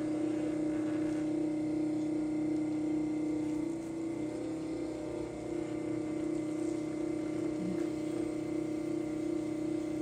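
Electric potter's wheel motor running with a steady hum while the wheel head spins, with a slight dip about four seconds in.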